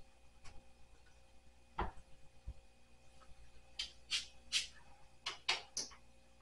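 Sheer curtain fabric being handled and fitted onto a curtain rod: a thump about two seconds in, a softer knock, then a quick run of short rustles.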